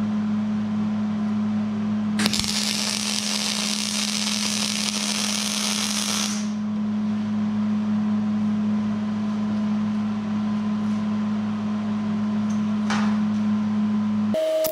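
A steady low electrical hum, with a loud, even hiss lasting about four seconds from about two seconds in. The sound changes abruptly near the end.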